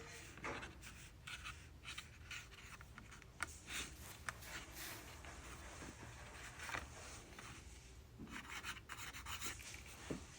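Size 12 Micron pen scratching short, loose marks on toothy watercolor paper: faint, irregular strokes.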